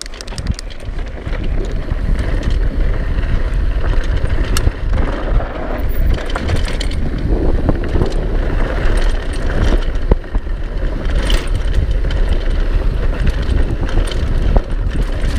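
Downhill mountain bike descending a dirt trail: wind buffeting the camera microphone and tyres rolling over the dirt, with the bike's chain and parts rattling and clicking over bumps. It grows louder over the first second as the bike picks up speed.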